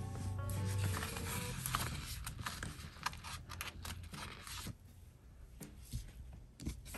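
Stickers being peeled from a sticker sheet and pressed onto paper planner pages: light paper rustling with small clicks and taps, busier in the first half and sparser near the end. Background music plays at the start and stops about a second and a half in.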